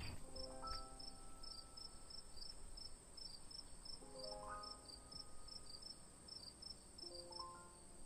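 Crickets chirping faintly and regularly, about three chirps a second, with soft music notes sounding over them now and then.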